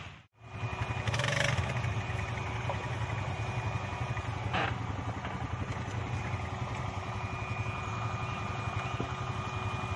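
Quad bike (ATV) engine running steadily, after a brief drop to silence right at the start.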